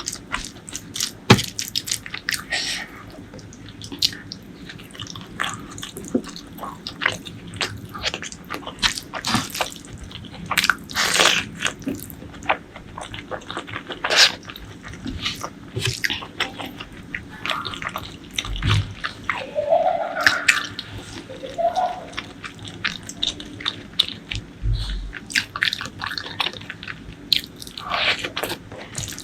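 Close-miked eating sounds: steady wet chewing, lip smacks and crunchy bites, with two low thumps about two-thirds of the way in and near the end.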